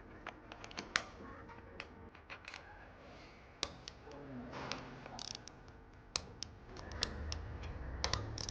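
Irregular light clicks and taps of small engine parts and tools being handled on the bench during engine reassembly, with a sharper click about a second in.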